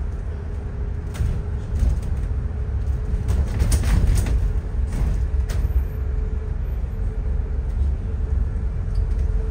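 Inside a moving bus: a steady low engine and road rumble with a faint steady hum. Several short rattles and knocks come through, the loudest cluster about four seconds in.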